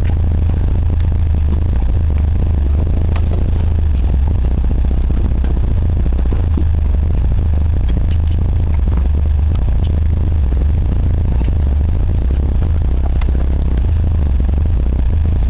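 Vehicle engine running, heard from inside the cab: a steady low drone with scattered light clicks and rattles.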